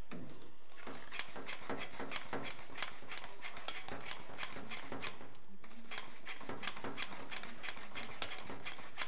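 Hand air pump with a pressure gauge being worked in quick strokes, about three a second, with a short pause near the middle, pumping air into a boiler's expansion vessel to bring its pre-charge up to one bar.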